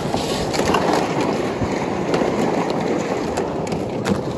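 Steady rough rushing noise with scattered light clicks, from travel across snow-dusted river ice.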